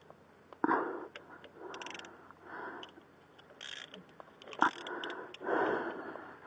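Repeated heavy breaths close to the microphone, about one a second, with a few sharp metal clicks and taps from the tool being turned against the rear brake caliper piston to wind it back in.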